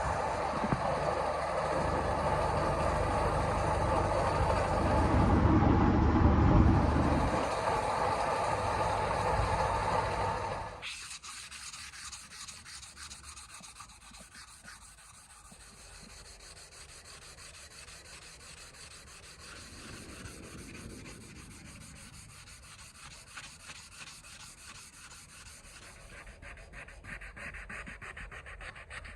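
A workshop machine runs steadily with a low rumble, swelling briefly, then stops abruptly about ten seconds in. After that comes a quieter, even rubbing, like metal being sanded or rubbed by hand, working a knife blade.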